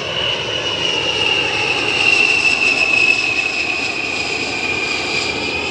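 A-10C Thunderbolt II's twin TF34 turbofan engines whining over a jet rush as it flies past. The high whine slowly falls in pitch and is loudest around the middle.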